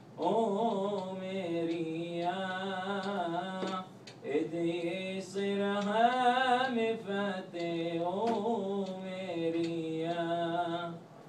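A single unaccompanied voice singing a slow, melismatic pizmon melody in maqam Hijaz. The long held notes carry vibrato and turns, with a brief breath break about four seconds in.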